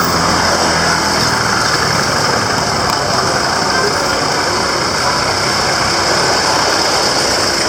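Busy street traffic: vehicle engines running and idling, over a steady wash of road noise.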